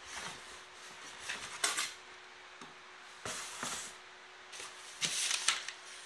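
Cardboard rubbing and scraping as a shoebox is handled and pulled out of a corrugated cardboard shipping carton, in three short bursts of rustling.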